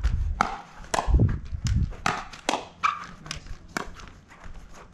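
Pickleball rally: a string of sharp pops as paddles strike the plastic ball and the ball bounces on the court, with players' footsteps. A low rumble comes in around one to two seconds in.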